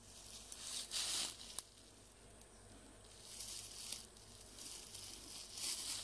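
Beekeeper's bellows smoker being squeezed, giving several short, airy puffs of air and smoke, with a small click from the bellows about a second and a half in.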